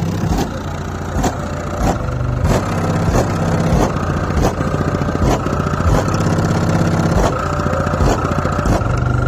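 Rap track played loud through a car stereo with a new subwoofer box: deep, steady bass notes under a regular beat hitting about every two-thirds of a second.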